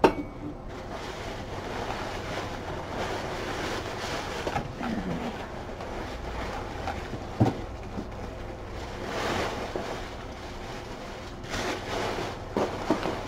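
Tissue paper and packing material rustling and crinkling as a cardboard box is rummaged through, with a sharp knock about seven seconds in.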